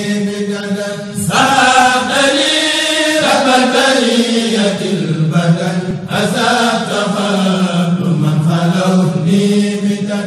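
Men chanting a Mouride xassida, an Arabic devotional poem, in a slow melodic line over a steady low held note. The voices grow fuller about a second in.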